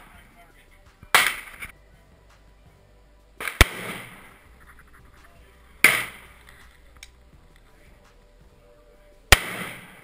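Four single rifle shots from an AR-15-style rifle, fired at a slow, deliberate pace about two and a half to three and a half seconds apart. Each is a sharp crack followed by an echoing tail.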